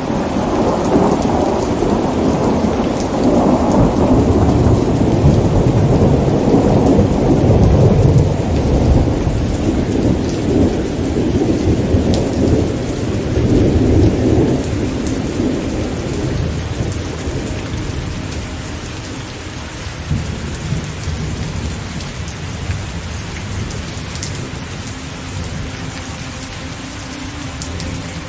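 Thunderstorm: a long, low rumble of thunder over steady rain, swelling in the first half and fading away after about fifteen seconds, leaving rain falling.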